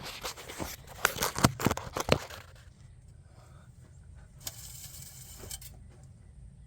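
Metal clicks, knocks and rattles from hands at work checking the hydraulic oil on a John Deere 4630 tractor. The sharpest knocks bunch in the first two seconds, and a short rustling hiss comes about halfway through.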